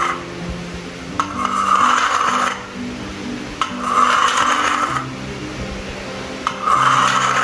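Fine crackles in a recorded lung auscultation sound: a burst of crackling with each breath in, repeating about every two and a half seconds, over soft background music. Fine inspiratory crackles are heard with pulmonary edema, pulmonary fibrosis and pneumonia.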